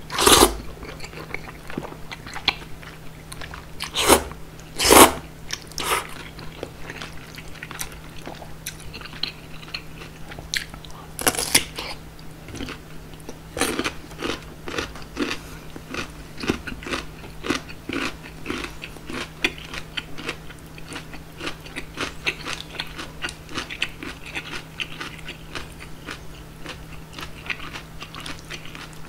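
Close-up eating sounds of kongguksu, cold bean-soup noodles: loud slurps of the noodles just after the start and twice around four to five seconds in, then steady chewing with wet mouth clicks and crunches.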